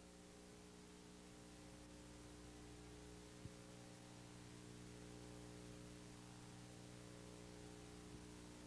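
Near silence: a steady low electrical hum with faint hiss, and one faint click about three and a half seconds in.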